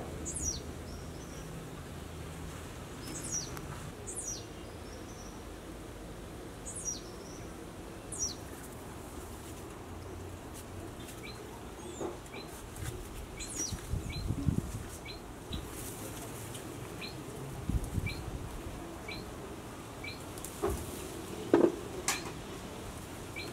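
Birds calling: quick high chirps that slide downward, repeated every second or few, then a run of short evenly spaced notes about one a second. Under them, a few dull knocks and rustles of branches being handled during cherry picking, the loudest a sharp knock near the end.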